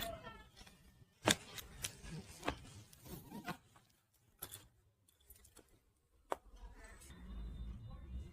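Sharp clicks and knocks from a chiropractic adjustment, spread out over several seconds, the loudest about a second in.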